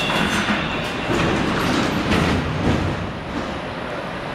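Metro car of an 81-720 "Yauza" train heard from inside while moving, with wheels rumbling and clattering on the rails, a few sharp knocks and a thin high squeal at the start. The noise eases off about three seconds in.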